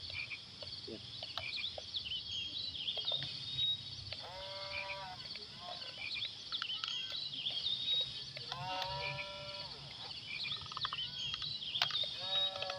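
An animal calls three times, each a drawn-out call of about a second that drops in pitch at the end, over steady high chirping.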